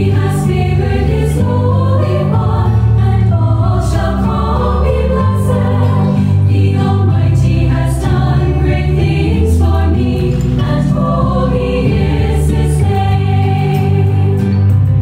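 A choir singing a hymn over instrumental accompaniment, with sustained low notes underneath.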